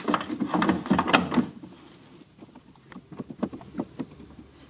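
Irregular mechanical clicks and knocks of hardware being handled, densest in the first second and a half, then a few faint scattered ticks.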